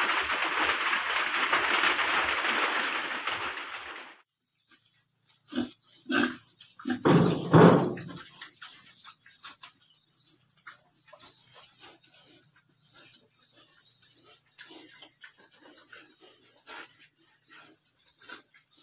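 A steady rushing hiss that cuts off abruptly about four seconds in, then young pigs grunting loudly a few times, followed by scattered short clicks and snuffles. Small birds chirp over and over through the second half, each chirp a quick rising peep.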